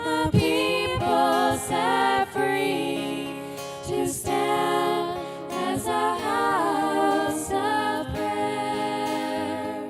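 Worship song: voices singing over instrumental accompaniment.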